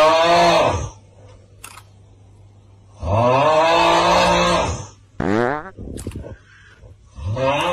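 A long, voice-like pitched sound, heard three times: each rises in pitch at its start and is then held for about two seconds. A short rising chirp falls between the second and third.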